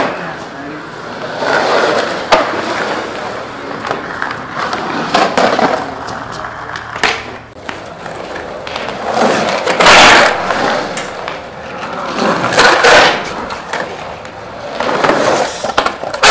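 Skateboard wheels rolling and carving around an empty concrete swimming pool, the roar swelling and fading with each pass up the walls and loudest about ten seconds in, with a couple of sharp clacks.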